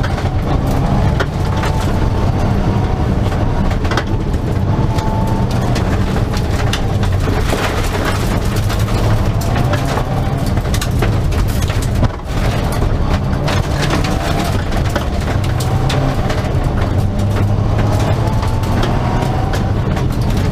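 Mitsubishi Lancer Evo's turbocharged four-cylinder engine running hard at stage speed, heard from inside the cabin, its pitch rising and falling with the throttle. Gravel and stones tick and rattle against the car throughout. The engine note briefly drops about twelve seconds in.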